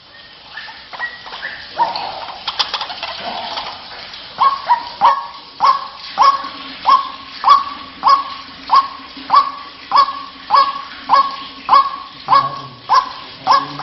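White-breasted waterhen calling: a few irregular calls at first, then from about four seconds in a steady, monotonous run of harsh "kruak" notes, nearly two a second.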